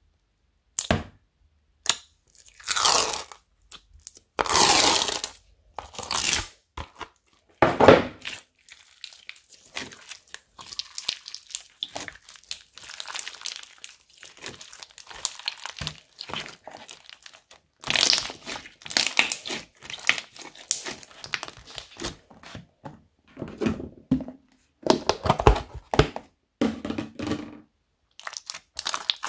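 Slime being poked, squeezed and stretched by hand: sticky pops, squelches and crunching from beads mixed into the slime, in separate bursts with short pauses between.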